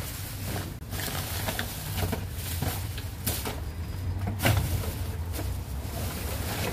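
Rummaging through cardboard boxes and plastic bags inside a metal dumpster: irregular rustling with scattered knocks and bumps, the loudest about four and a half seconds in, over a steady low rumble.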